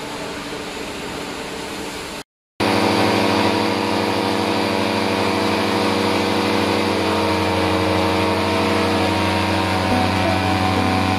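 A steady rush of machinery noise breaks off briefly about two seconds in. It is followed by a large trailer-mounted firefighting smoke-extraction fan running steadily: a loud, even drone of several held tones over a hiss of moving air.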